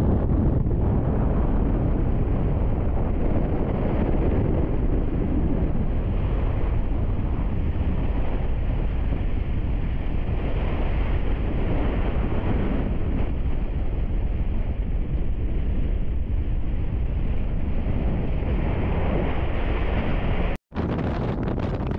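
Wind buffeting the microphone in the open back of a moving pickup truck, a steady low rumble with the truck's running and road noise beneath it. The sound cuts out for an instant near the end.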